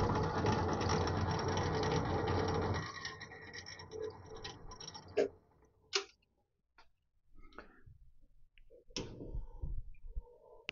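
Myford ML7 lathe running in its slowest back-gear drive, a steady whir of gears and belt. About three seconds in it is switched off and the spindle winds down, followed by a few light knocks of metal parts being handled.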